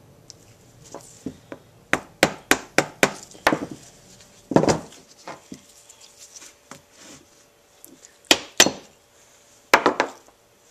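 A screwdriver prying and tapping at a small motorcycle carburetor's metal float bowl to free it: a quick run of six or seven sharp clicks, a duller knock, then a few more sharp clicks near the end.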